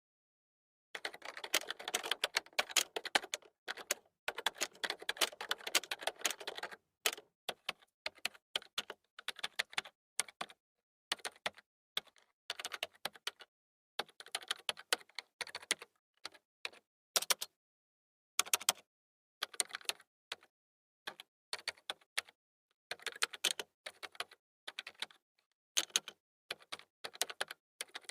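Computer keyboard keys being typed: about six seconds of fast, continuous typing, then short runs and single key presses separated by gaps of dead silence.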